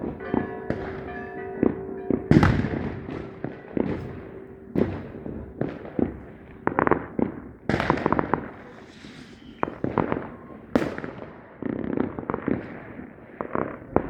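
Fireworks going off in an irregular run of sharp bangs and pops, each with a short decaying tail, about a dozen or more. A fizzing crackle comes in about nine seconds in.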